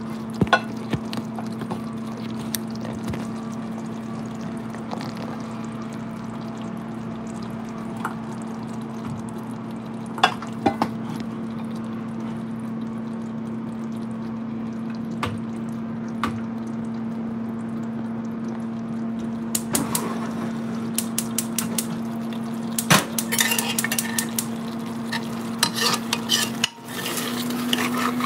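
Steel ladle clinking and scraping against an aluminium pressure cooker as curry is stirred: scattered single clinks at first, then a quick run of clinks in the last several seconds. A steady low hum runs underneath.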